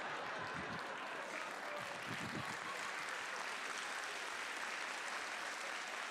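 An audience applauding steadily in response to a joke.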